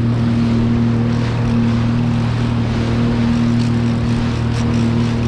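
Sea-Doo Fish Pro personal watercraft engine running steadily with a low, even hum, over a constant rush of water and wind noise.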